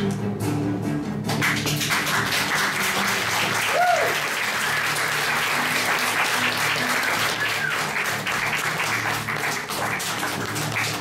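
Theatre audience applauding, beginning about a second in, over recorded scene-change music, with a single cheer about four seconds in.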